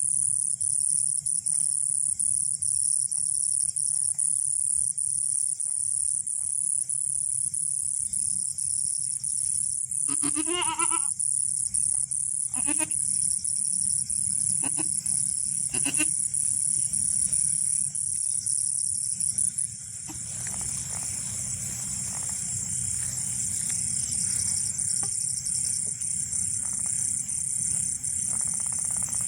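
A goat bleating: one wavering call about a second long roughly ten seconds in, then three short bleats over the next six seconds. A steady, high insect chirring runs underneath throughout and shifts about twenty seconds in.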